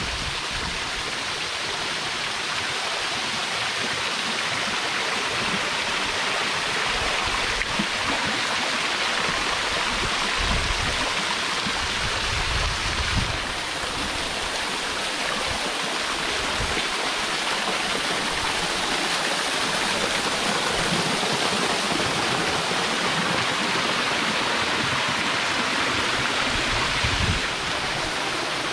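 Small waterfall spilling down a rock bluff and splashing onto the lake surface: a steady rushing hiss of falling water.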